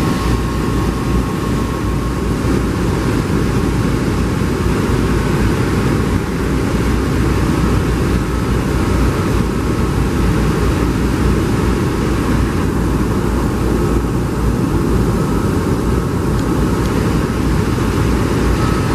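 Steady, loud jet engine noise from a taxiing Boeing 747-400 freighter, with a faint whine that fades a few seconds in.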